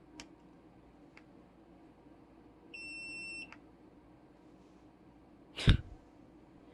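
Two light clicks, then a single steady electronic beep lasting under a second, of the kind an electric fan's control panel gives on a button press. Near the end comes one loud thump.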